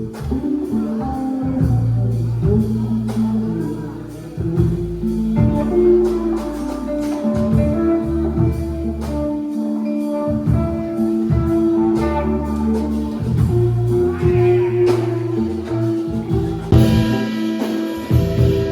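A band playing live: guitar over held bass notes that change every second or two.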